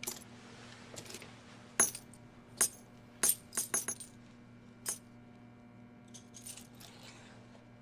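Gold coins clinking as they are stacked and set down on a wooden desk: a series of sharp metallic clinks roughly a second apart, with a quick run of several around four seconds in. Fainter handling sounds follow near the end, over a faint steady low hum.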